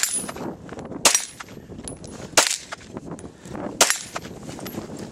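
Four pistol shots from a Glock 34, spaced about a second and a quarter apart.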